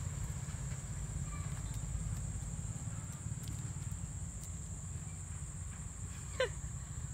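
Outdoor ambience: a steady low rumble and a steady high-pitched insect drone, with one short call falling in pitch about six and a half seconds in.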